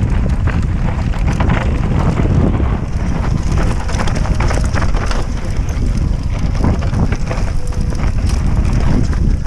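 Mountain bike descending a loose, rocky trail at speed: a steady rumble of wind buffeting the microphone, with tyres crunching over stones and frequent clattering knocks from the bike.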